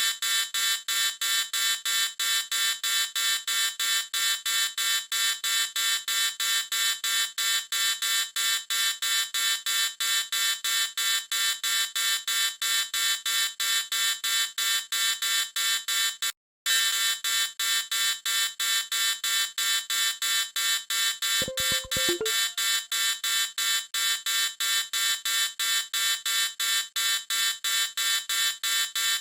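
Shrill electronic alarm beeping, repeating rapidly and evenly at about three beeps a second. It cuts out for a split second about sixteen seconds in.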